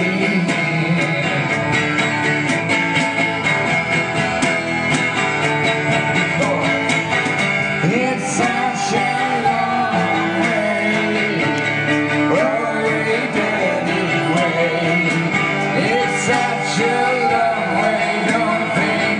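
Live acoustic music: a steel-string acoustic guitar strummed, with a woman singing lead and light hand percussion clicking along in time.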